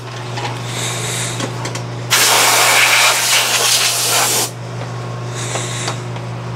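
Compressed air from an air compressor hissing as dust is blown out of a desktop PC: one long blast of about two and a half seconds in the middle, with shorter, fainter puffs around it, over a steady low hum.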